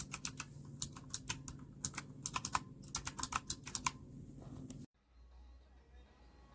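Typing on a Razer Huntsman Mini keyboard's clicky optical switches: a quick, irregular run of sharp key clicks for about four seconds, then the typing stops. A faint low hum remains.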